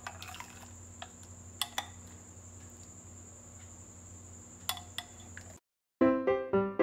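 A metal spoon clinking lightly against a ceramic bowl a few times while ladling liquid gelatin mixture, over a faint steady hum. The sound cuts out briefly near the end and piano music begins.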